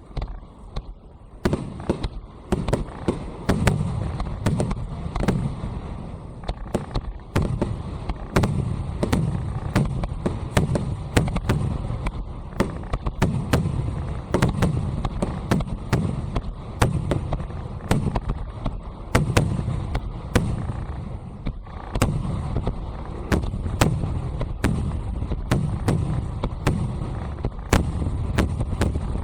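Aerial fireworks shells bursting in a rapid barrage: sharp cracks come one after another, often several a second, over a continuous low rumble of booms.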